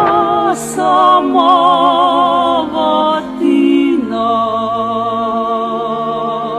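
Music: singing voices holding long notes with a wavering vibrato over sustained lower notes.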